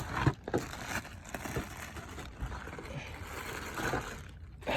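Plastic engine air-filter housing and filter being handled: scattered knocks, clicks and rustles as the housing lid is opened, with a sharp knock near the start.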